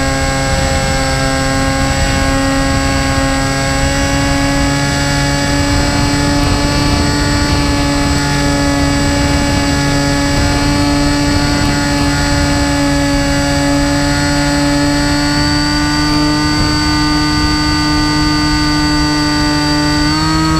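RC flying wing's motor and propeller, heard through the onboard camera in flight: a steady whine at nearly constant throttle over wind rush. Its pitch steps up right at the end as the throttle is opened.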